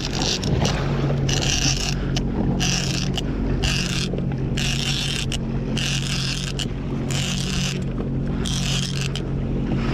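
Sea-Doo FishPro jet ski's engine running steadily, with a rasping swish about once a second as a fishing reel is cranked in against a hooked fish.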